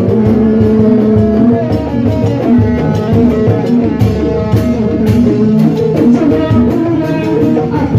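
Loud Sundanese folk band music played through a street sound system, with hand drums keeping a steady beat under plucked-string and guitar melody; no singing.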